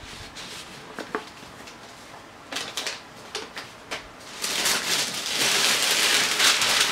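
A few light paper handling clicks and taps, then from about four and a half seconds in, continuous loud crinkling and tearing of wrapping paper being pulled off a shoebox.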